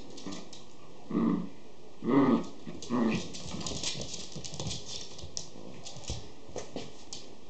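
A Schipperke puppy and a pinscher play-fighting over a toy: three short growls about a second apart, the middle one loudest, with claws clicking on a wooden floor.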